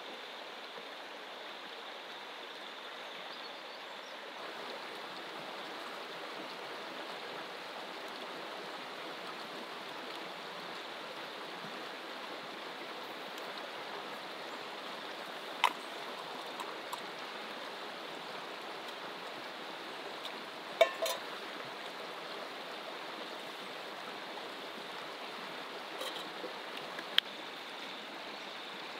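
Steady rushing of a shallow river flowing over rocks. A few short, sharp clicks break through, once around the middle, a quick cluster a few seconds later, and again near the end.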